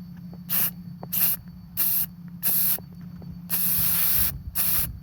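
Aerosol can of clear spray paint hissing in short blasts: six quick squirts of about half a second each, with one longer spray of nearly a second about three and a half seconds in.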